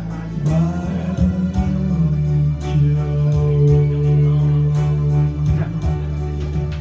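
Instrumental passage of a song: guitar and bass over a steady beat.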